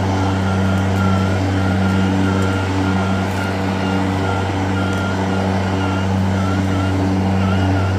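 EGO Select Cut LM2206SP 56-volt battery mower running steadily with its blade spinning and the self-propel drive on its first speed, a steady hum with a faint wavering whine above it. The deck is set at its highest height, so the blade is not cutting grass.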